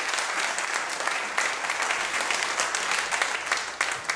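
Audience applauding, with many hands clapping together; the applause thins out to a few scattered claps near the end.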